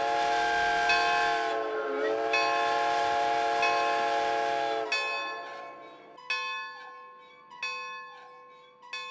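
Steam locomotive whistle sounding two long blasts, each sagging slightly in pitch as it starts and stops, over a slowly ringing locomotive bell. After the whistle stops about five seconds in, the bell goes on alone, struck about every 1.3 seconds and ringing out between strokes.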